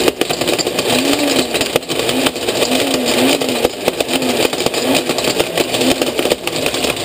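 Cuisinart blender motor running with a pair of sunglasses in its glass jar, pretty loud, the frames clattering and knocking against the blades and jar. The motor's pitch wobbles up and down as the load shifts.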